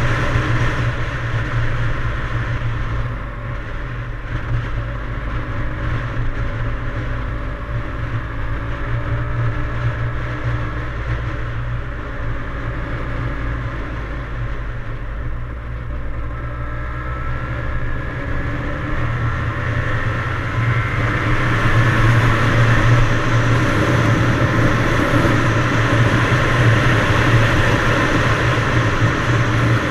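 Yamaha DT175's two-stroke single-cylinder engine running while the bike is ridden. Its pitch eases off and then climbs, and it runs louder over the last third.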